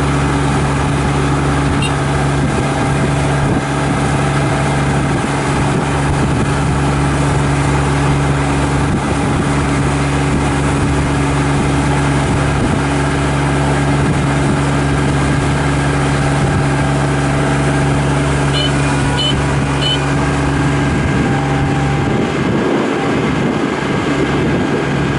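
Kubota ER447 combine harvester's diesel engine running steadily under a constant mechanical drone. The low rumble thins out near the end.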